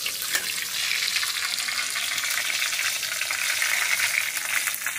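Dried red chillies and whole cumin seeds sizzling steadily in hot mustard oil in a metal kadhai, being fried until they turn red, with a few scrapes of the spatula near the start.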